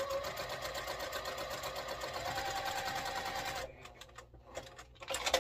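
Electric sewing machine stitching a seam at a steady fast speed, the needle's rapid even clatter over the motor's hum. It stops a little over halfway through, then comes a few light clicks and a brief burst near the end.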